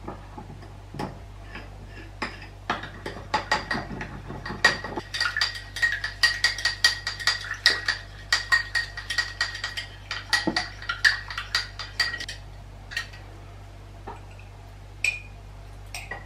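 Metal spoon stirring briskly in a small ceramic cup, clinking against its sides several times a second with a ringing tone for about ten seconds, then a few separate clinks.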